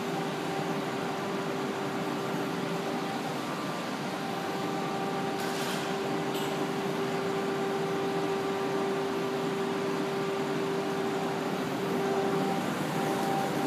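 Steady machine hum with a constant drone from a large stainless-steel double-cone mixer turning on its drive, with a couple of faint high clicks around the middle.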